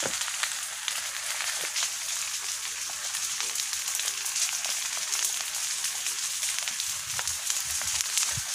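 Vegetation fire burning: a steady hiss with many small crackles and pops.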